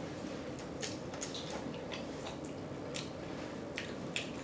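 Close-miked open-mouth chewing of tacos: wet smacking and lip clicks, irregular and several a second.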